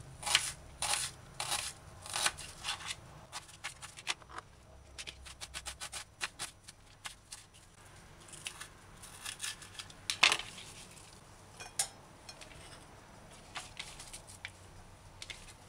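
Kitchen knife slicing an onion on a plastic cutting board: a series of sharp taps as the blade meets the board, about two a second at first, then a quicker run of cuts, then a few single strokes, thinning out to faint scattered ticks near the end.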